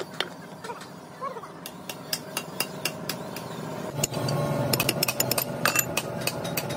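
Irregular light metallic clinks and taps of steel tools and wheel nuts against a truck's steel wheel hub, coming thicker in the second half. A low steady engine hum comes in about four seconds in.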